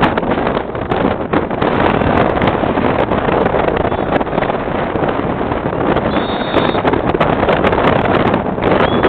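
Wind buffeting a phone's microphone: a loud, steady rushing noise that rises and falls in gusts.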